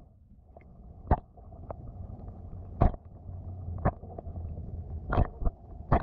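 Muffled underwater sound heard from below the surface: a steady low wash of water with about seven sharp plops, as pieces of feed land on the surface above. The plops come irregularly, one every second or so, and several fall close together near the end.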